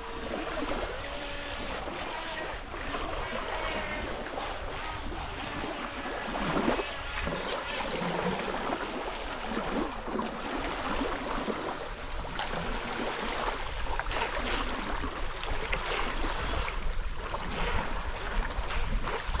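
Small waves lapping on a pebbly lakeshore, with wind rumbling on the microphone.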